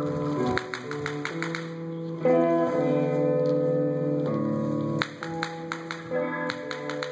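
Instrumental music with held, changing notes, overlaid with quick runs of sharp clicks.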